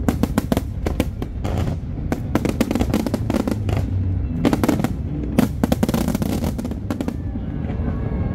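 Aerial fireworks shells bursting in rapid volleys: many sharp bangs and crackles over a continuous low rumble. The bangs thin out after about seven seconds.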